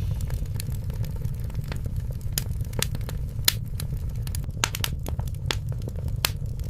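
Wood fire crackling in a fireplace: irregular sharp pops and snaps over a steady low rumble of flames.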